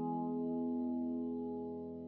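Background music: a held chord of sustained tones, slowly fading.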